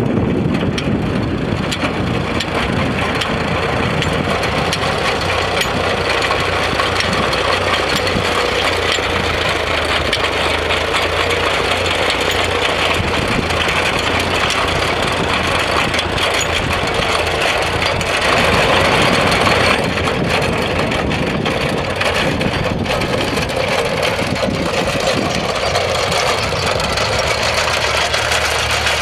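Small Farmall tractor's engine running steadily while it pulls an antique potato digger, with the rattle and clatter of the digger's steel wheels, arms and elevator working over the ground. It is a little louder for a couple of seconds about two-thirds of the way through.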